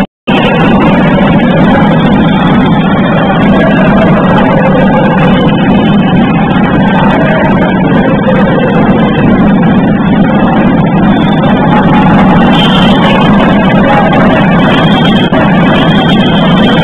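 Loud, steady, muddy din of a basketball crowd and play in a sports hall, with no clear single events. The sound cuts out for a moment right at the start.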